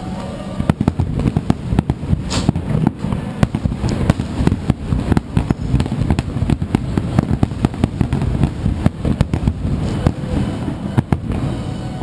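Aerial fireworks bursting in a dense, rapid barrage, many booms and cracks a second, deepest in the low end.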